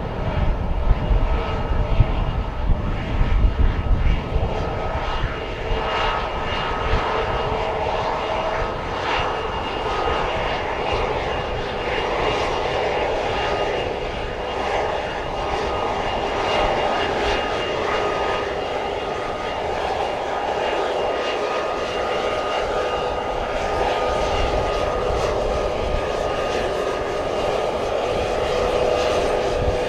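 Bombardier Global 7500 business jet's two GE Passport turbofans running at taxi power as the jet rolls past: a steady rushing roar with a high, steady whine over it.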